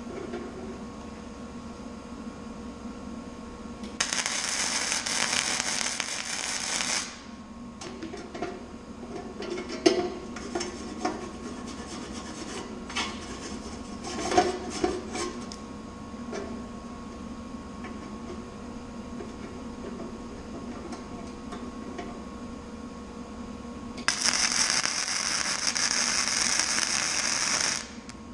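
Flux-core wire-feed welder arc crackling in two bursts of about three seconds each, with short metallic clinks and taps in between.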